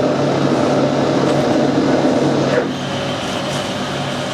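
Metal lathe running in reverse with the lead screw engaged, its gear train clattering as the carriage runs back along a 4 TPI thread between cuts. The clatter stops about two-thirds of the way through, leaving a steadier, quieter hum.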